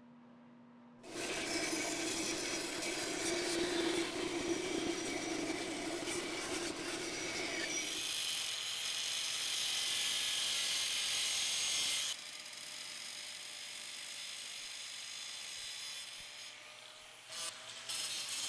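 A power saw cutting wood for about seven seconds, then an angle grinder with a cut-off wheel slicing through sheet steel. Near the end the grinder cuts in short, broken strokes.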